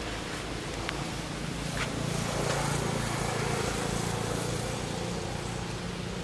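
A motor vehicle's engine hum that swells for a few seconds and then eases off, over a steady outdoor hiss, with two faint clicks in the first two seconds.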